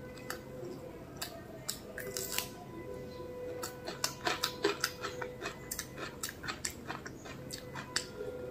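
Fingers mixing and gathering mutton biryani rice on a banana leaf: a run of small clicks, crackles and rustles from the rice and leaf, thickest about four to five seconds in.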